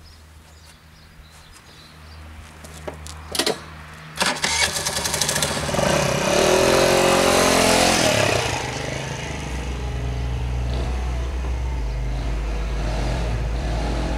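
Baotian 50cc four-stroke scooter engine: a few clicks, then the engine starts about four seconds in. It is revved with a rising and falling pitch as the scooter pulls away, then runs on at a steadier note.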